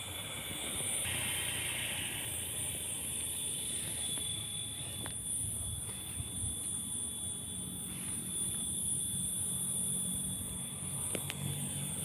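Open rice-field ambience: a steady high-pitched insect buzz over a low background rumble, with a couple of faint clicks.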